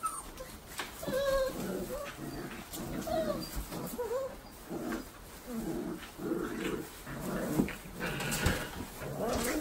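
A litter of Great Dane puppies whining and yipping in many short calls, about one every half second, as they play together.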